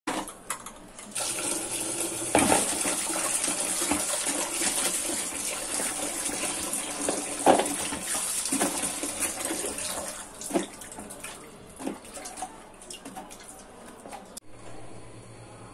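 Tap water running into a steel pot of cut raw banana pieces in a sink while a hand swishes and rubs the pieces, with a few knocks against the pot. The water starts about a second in and eases off in the last few seconds.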